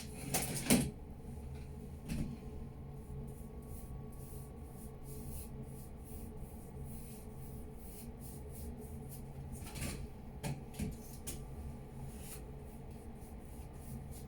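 Paintbrush rubbing along the sides of a canvas in many short faint strokes, with a few brief louder knocks, over a steady low hum.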